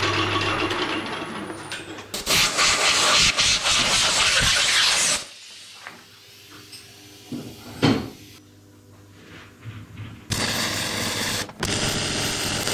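A milling machine runs and cuts metal, with a steady hum and a high whine that falls away in the first seconds, then a loud stretch of cutting noise. After a quieter spell with light clicks and one sharp knock, loud, hissing bursts of arc welding start and stop near the end.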